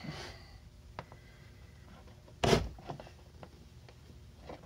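Faint handling noises: a sharp click about a second in, a few smaller clicks, and one short thump about two and a half seconds in.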